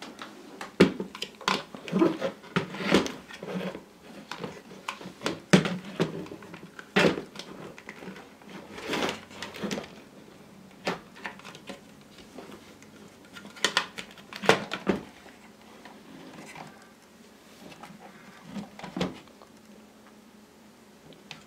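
Irregular clicks, knocks and light clatter, coming in clusters and thinning out towards the end.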